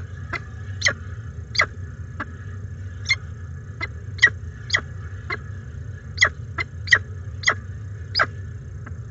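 Downy peregrine falcon chick giving short, sharp begging cheeps, about two a second at an uneven pace, while it is being fed, over a steady low hum.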